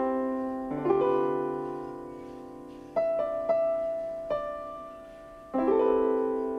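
Electronic keyboard playing slow piano chords, each struck and left to ring and fade before the next; about five chords in all, with no voice.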